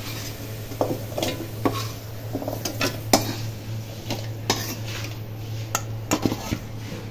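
Metal spoon scraping and clinking against a steel kadai and a steel bowl as fried potato pieces are scooped out, in irregular clanks throughout. A steady low hum runs underneath.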